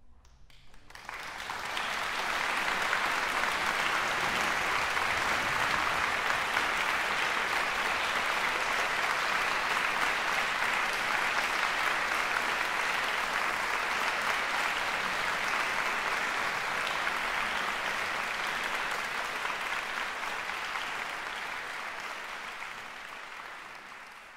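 Concert hall audience applauding: the clapping swells up within the first two seconds, holds steady, and fades away near the end.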